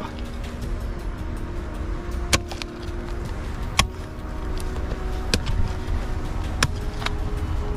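A mattock chopping into hard, stony soil: four sharp strikes about a second and a half apart, over a steady low rumble.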